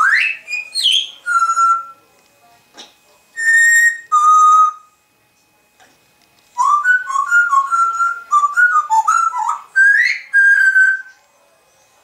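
African grey parrot whistling: a rising whistle and a few single held notes, a pause, then a quick run of whistled notes like a tune, ending on a rising note and a held one.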